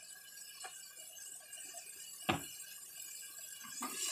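Steel ladle clinking against the metal pressure cooker while chickpeas are stirred into the masala: small scattered clicks and one sharp clink about two seconds in, over a faint hiss. A rush of noise builds near the end.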